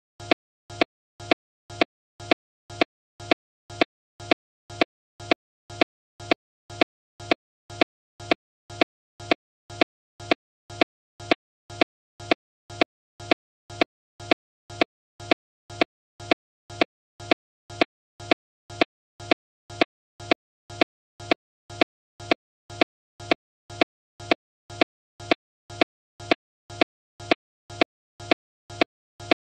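A digital audio stutter: the same split-second fragment, a sharp click followed by a short hum, repeats without change about every 0.6 s with silence between, like a stuck playback loop.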